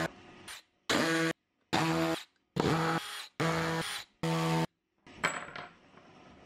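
Power drill running in about five short bursts, each about half a second to a second long and cutting off abruptly, backing screws out of a plywood benchtop. A few faint light clicks follow near the end.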